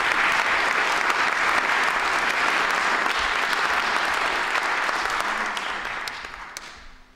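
Audience applauding, a steady round of clapping that dies away near the end.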